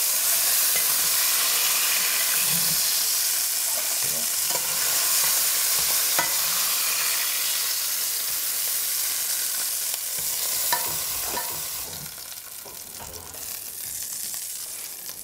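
Chunks of wild boar meat sizzling as they sear in hot oil in a stainless steel pot, with a few clicks of a utensil against the pot. The sizzle drops off about twelve seconds in as the browned pieces are lifted out.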